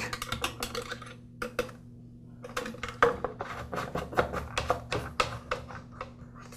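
Quick, irregular light clicks and taps as a wire hook and fingers work at a string trimmer's plastic fuel tank, seating the in-tank fuel filter. A faint steady low hum runs underneath.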